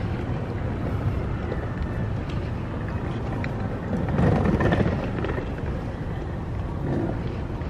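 Outdoor rumble with wind buffeting the microphone, swelling louder for about a second around four seconds in.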